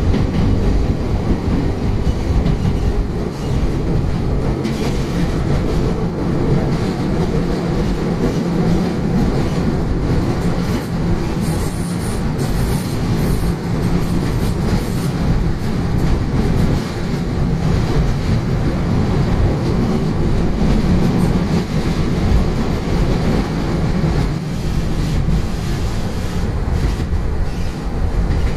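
Kobe Electric Railway three-car train running at speed, heard from inside the driver's cab: a steady rumble of wheels over the rails and joints, with a faint high wheel squeal on a curve about halfway through.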